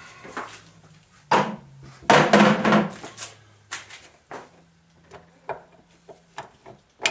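Metal knocks and clatter from the gear train and case of a Chevy NV3500 five-speed manual transmission being handled: a sharp knock about a second in, a louder rattling clatter from about two to three seconds in, then lighter clinks.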